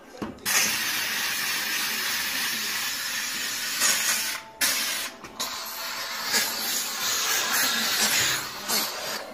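McCulloch MC1385 canister steam cleaner's nozzle blowing a steady hiss of steam onto a stovetop. The hiss starts just after the beginning and cuts out briefly twice around the middle.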